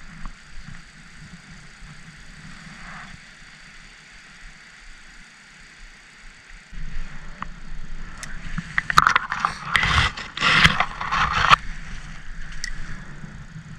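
Wind buffeting the microphone as a low rumble that grows much stronger about seven seconds in, with a burst of scraping and clattering noises between about eight and eleven seconds.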